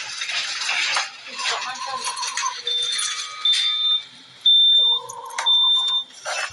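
Intensive care unit ambience: short, high-pitched electronic beeps from bedside monitor alarms repeat about once a second, over lower steady tones. A burst of clatter comes in the first second.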